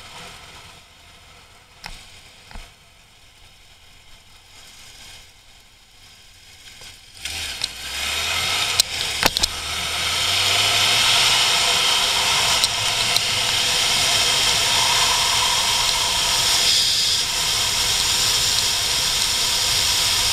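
Inline-four sportbike engine, low and quiet at first, then rising in pitch as the bike accelerates about seven seconds in. A few sharp clicks follow, and from then on a loud wind rush on the mounted camera's microphone covers most of the engine.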